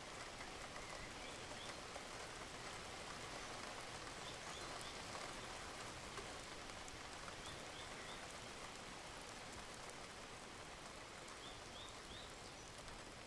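Steady rain from a relaxation ambience track, with a bird giving short rising chirps in little groups of three every few seconds.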